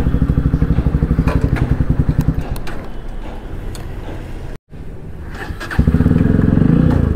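Bajaj Pulsar single-cylinder engine idling through an aftermarket Akrapovic exhaust with a steady, fast pulse. The idle fades away about two and a half seconds in, leaving a few light clicks. After a sudden brief dropout, the pulsing idle returns loudly near the end.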